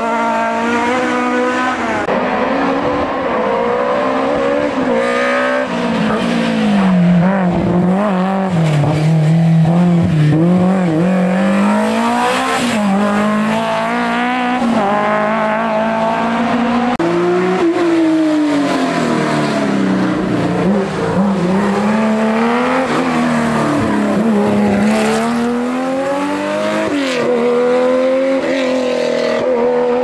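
Historic rally cars running flat out on a tarmac stage. The engine note climbs and drops repeatedly as the revs rise and fall, with no let-up in loudness.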